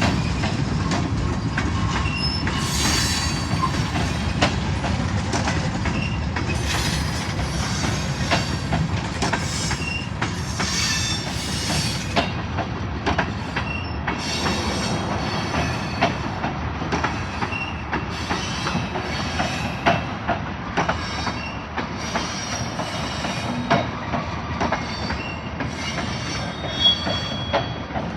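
Railroad cars rolling past: a steady rumble with wheels clacking irregularly over the rails, and short high-pitched wheel squeals that come and go.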